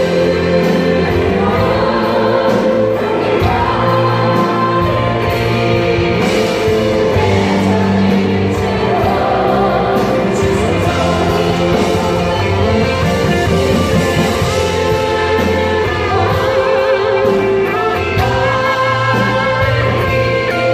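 Suhr electric guitar playing a slow, singing lead melody with sustained notes and wide vibrato, over a bass line and accompaniment.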